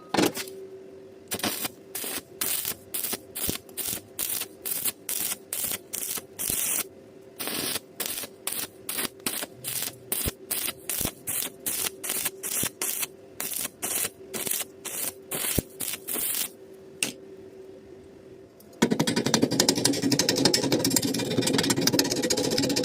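Arc welding done in short pulses: the arc is struck and broken about twice a second, each burst a brief crackle, over a faint steady hum. Near the end a continuous dense noise takes over.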